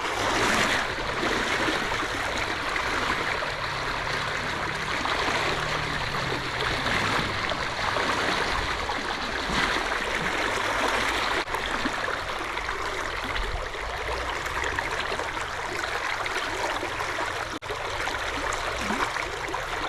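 River water flowing and rushing steadily, a continuous even hiss.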